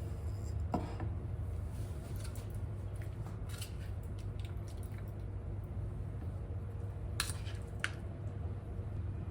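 Steady hum of a kitchen range-hood fan, with a few short clicks and crackles over it. The loudest of these are two, about seven and eight seconds in.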